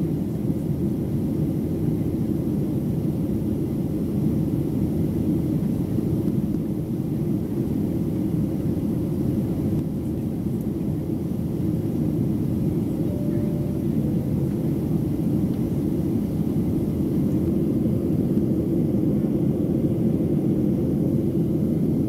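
Steady, low-pitched cabin noise inside a Boeing 737-700 in flight: the continuous rush of airflow and its CFM56-7B turbofan engines, heard from a seat by the wing.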